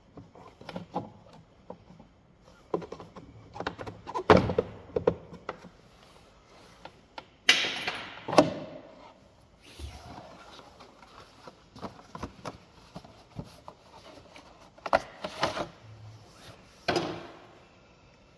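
Irregular clicks and knocks of hard objects being handled, with a few louder thuds spread through.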